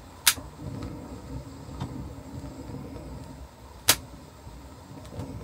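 Thetford two-burner gas hob burner lit but sputtering, with air still in the gas supply line: a low, uneven flame noise broken by two sharp pops, about three and a half seconds apart.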